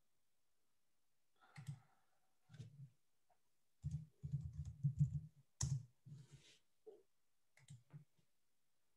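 Faint typing on a computer keyboard: a few scattered keystrokes, then a quick run of keys about four seconds in, with one louder keystroke just after, and a few more taps near the end.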